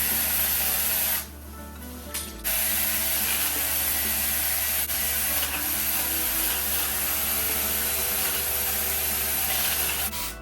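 Saker battery-powered mini chainsaw running and cutting branches: a short run of about a second, a brief pause, then about eight seconds of steady cutting that stops just before the end.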